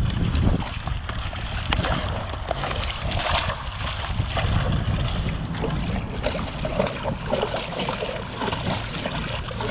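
Water splashing and churning at the surface as a school of jacks slashes at a swimbait drawn in figure eights right beside the dock: a feeding frenzy. The splashing goes on in close, irregular bursts throughout.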